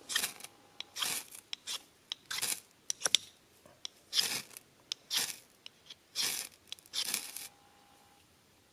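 A Bayite ferro rod scraped hard with a knife, about eight harsh strokes roughly once a second with small clicks between them, throwing sparks onto tinder to start a fire.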